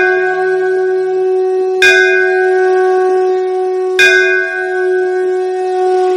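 A large bell ringing, struck again about two seconds in and again about four seconds in, each strike ringing on into the next.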